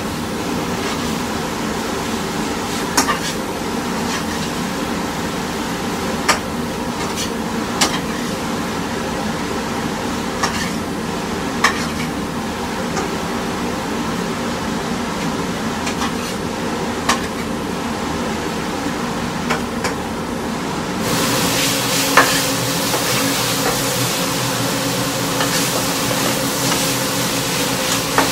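A spatula stirs and scrapes food in a nonstick wok over a gas flame. The food sizzles steadily over a background hum, and sharp clicks every two to four seconds mark the spatula knocking the pan. About twenty seconds in, the frying turns louder and brighter.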